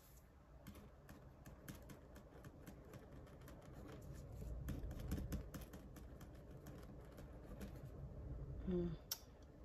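Small, irregular clicks and scratches of a pen writing labels and hands handling cash envelopes on a table, with a brief hum of voice near the end.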